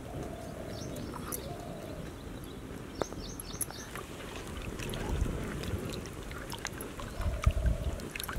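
A wooden spoon stirring turmeric-yellow lentils and water in a clay pot over a wood fire, a soft sloshing, with scattered sharp clicks from the fire.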